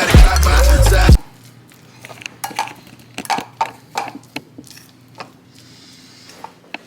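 Hip-hop music that cuts off about a second in, followed by scattered light clinks and clatter of dishes and utensils.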